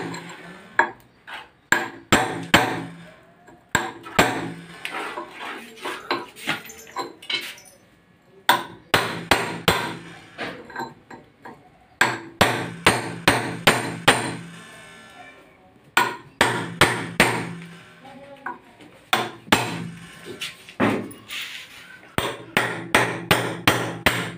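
Hammer striking a steel chisel in quick runs of sharp blows with short pauses between them, driving the metal band on the rim of an atta chakki grinding stone down all around.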